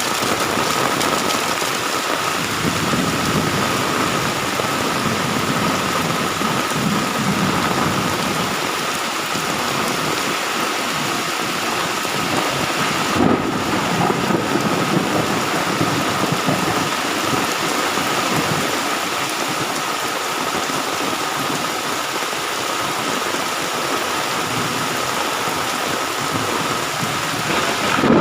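Heavy rain pouring down steadily during a thunderstorm, with low thunder rumbling in the first third and again around the middle, and one short sharp sound about halfway through.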